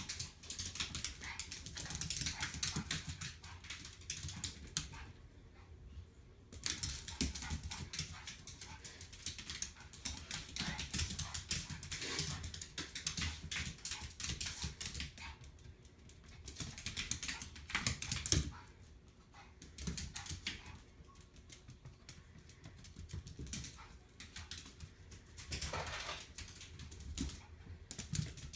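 A small dog's claws skittering and clicking on a hard vinyl floor as it scrambles after a laser pointer dot. The clicking comes in bursts of rapid taps, with short lulls between them.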